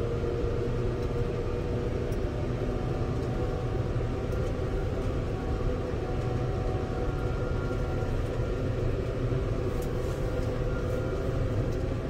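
Steady low drone inside the cab of a Fendt 720 tractor while driving: the engine's rumble mixed with the cab heater's fan running full bore, with a few faint steady tones and no sudden events.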